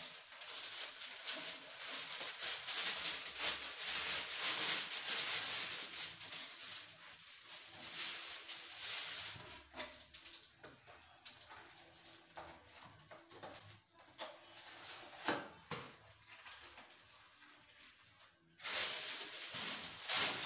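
Crinkling and rustling of a thin plastic bread bag being handled, then, near the end, a sudden louder crackling of aluminium foil being pulled out and crumpled.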